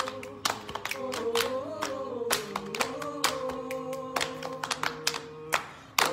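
A small mixed group singing a cappella in close harmony on held notes, with hand claps and lap slaps keeping a steady rhythm a few times a second.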